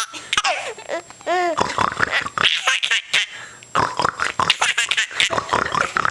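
A person imitating a pig's oinks and snorts in repeated bursts, with a baby laughing in between.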